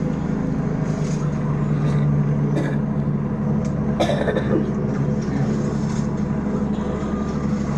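Medical helicopter running on a rooftop pad with its rotor turning: a steady low, even hum with a few faint clicks.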